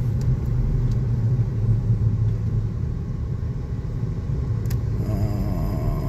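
Car on the move heard from inside the cabin: a steady low engine and road rumble.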